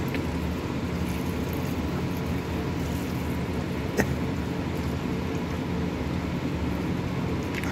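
Steady low machine hum, like a household fan or appliance running, with a single sharp click about four seconds in.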